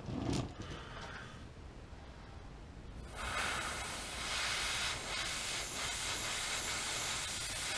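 Airbrush spraying paint through a comb stencil: a steady hiss that starts about three seconds in and cuts off at the end.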